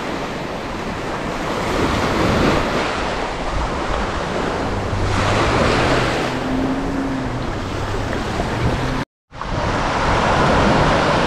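Surf breaking and washing up a beach, swelling as each wave comes in, with wind buffeting the microphone. The sound cuts out to silence for a moment about nine seconds in.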